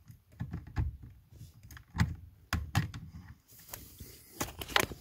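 Scattered plastic clicks and light knocks, about half a dozen of them, as a screwdriver and fingers work a wiring connector loose on a COM2000 steering-column switch unit.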